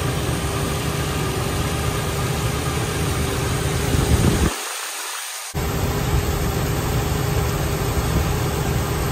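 Ford Ranger 4.0 V6 idling steadily with its new serpentine belt and idler pulley turning, with no squeal from the belt drive. The sound breaks off for about a second halfway through.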